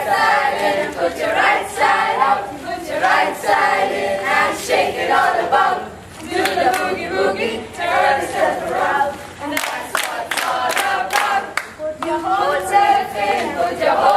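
A group of people singing together without instruments, with a few sharp claps about ten seconds in.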